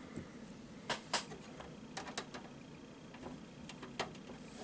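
A handful of faint, irregular metallic clicks and taps as a small screw and screwdriver are fitted against a desktop computer case's expansion-slot bracket.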